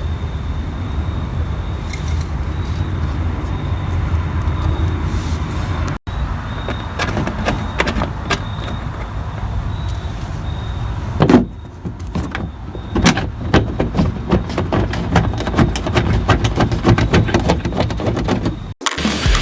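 Car engine running steadily with a low hum. About eleven seconds in there is a loud knock, followed by a run of sharp clicks and knocks.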